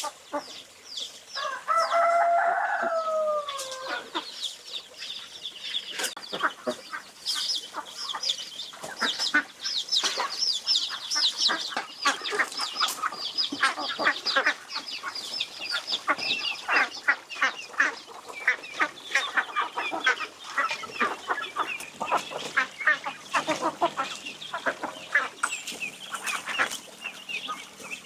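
Chickens clucking, with a dense chorus of short high cheeping calls. A rooster crows once, about two seconds in, the call falling in pitch at its end.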